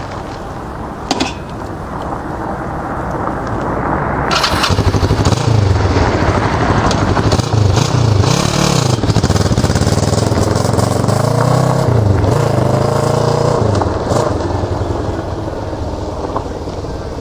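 Kawasaki cruiser motorcycle idling, with a short knock about a second in, then pulling away: the engine revs up, its pitch rising and dropping twice as it shifts up through the gears, and it fades as the bike rides off.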